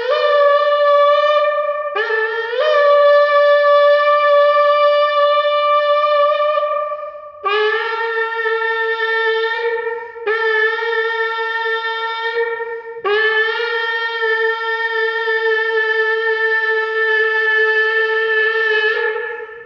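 Shofar sounding a series of five long blasts, each starting with a brief upward slide into a held, brassy note. The first two sit on a higher note and the last three on a lower one, and the last blast is the longest, held for about six seconds.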